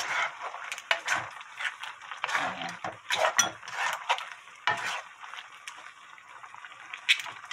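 A wooden spatula stirs and tosses monkfish, bean sprouts and minari in a thick red sauce in a frying pan, making irregular scrapes and knocks against the pan.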